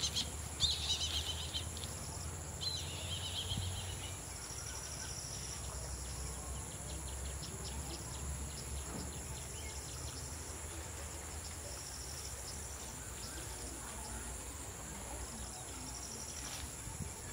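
Insects calling in steady high-pitched tones with recurring trills, and a bird chirping in the first few seconds, over a low steady rumble.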